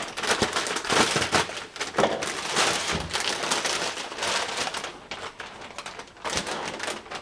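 Foil moisture-barrier pouch crinkling and crackling as it is opened and handled, dense for the first few seconds and thinning out toward the end.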